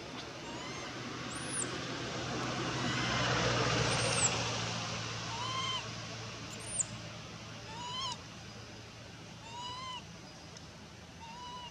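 Infant macaque giving short, high, arched cries, repeated about every one to two seconds. A broad rushing noise swells and fades through the middle.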